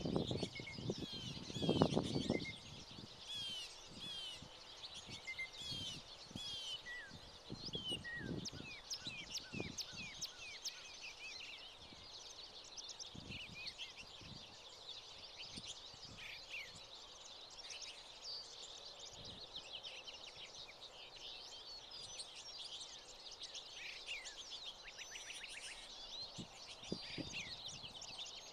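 A flock of small finches chirping and twittering, with many short high calls overlapping. A few low thumps sound in the first couple of seconds.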